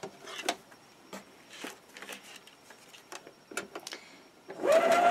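Brother sewing machine at a corner: scattered light clicks and fabric handling as the work is turned, then near the end the machine starts stitching again with a steady motor whine.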